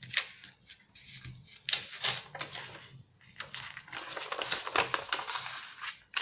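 Paper and shiny foil sheet rustling and crinkling as a paper message card is slid down into a rolled-paper photo frame. It comes in several bursts, the longest from about three and a half seconds to near the end.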